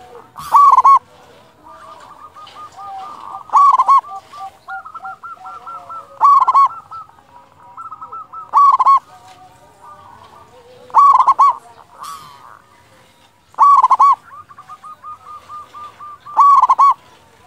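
Zebra dove (perkutut) singing its loud cooing phrase seven times, about every two and a half seconds, with softer cooing between the phrases.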